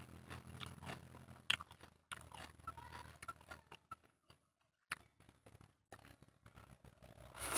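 Close-up hand-eating sounds: fingers squishing and mixing rice into chicken curry on a plate, with wet mouth clicks and chewing in a run of small ticks. A louder, noisier sound comes near the end.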